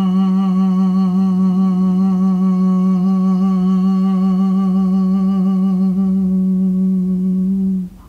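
Vocal toning: one long hummed note held on a single low pitch with a slight waver, cutting off shortly before the end.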